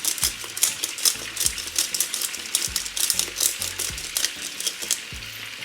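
Black pepper grinder being twisted, a fast run of dry grinding clicks that stops about five seconds in.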